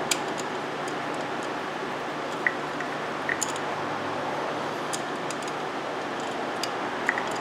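Scattered light clicks and taps as the glow plug wiring harness and its plastic connectors are handled and pulled up on a 1.9 turbo diesel engine, over a steady background hiss.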